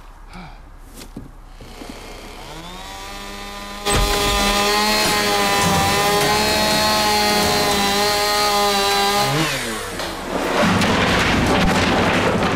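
Chainsaw winding up about two seconds in, then running at full speed for about five seconds as it cuts through the wooden case of a grand piano. Its pitch falls away, and a second stretch of loud sawing follows near the end.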